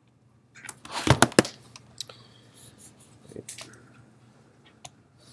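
Rustling and clicking handling noise: a loud cluster of rustles and sharp knocks about a second in, then scattered short clicks.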